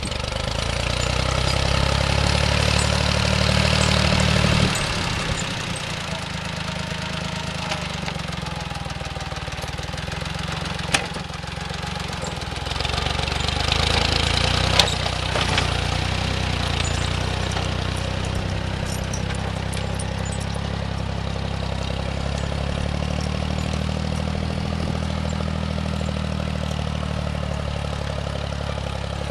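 Engine of a snowplow running steadily as it clears snow, working harder at first, easing off about four and a half seconds in, and pulling harder again in the middle. Two sharp knocks stand out, one near the middle and one a few seconds later.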